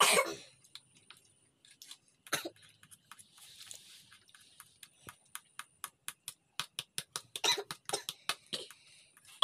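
A plastic fork clicking and tapping against a plastic plate in quick strokes, about five a second through the middle, with a few short, loud coughs near the start and near the end.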